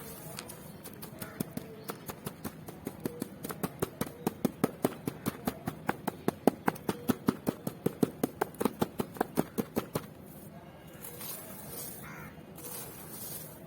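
Charcoal blocks being worked by hand, giving a rapid, even run of sharp squeaky clicks, about five a second, that grow louder and then stop abruptly about ten seconds in. Soft dusty crumbling rustles follow.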